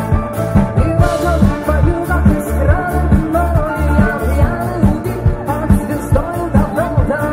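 Rock band playing live through a PA: electric guitars, bass and keyboards over a steady drum beat, with a voice singing the melody from about a second in.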